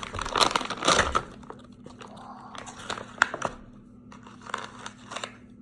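Plastic packaging crinkling and rustling as it is handled, dense for about the first second and then in sparser crackles.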